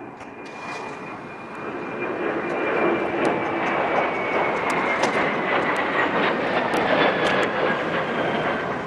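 Twin-engine jet airliner passing overhead: a rushing engine roar that swells over the first few seconds and stays loud, with a high whine that slowly falls in pitch as it goes over.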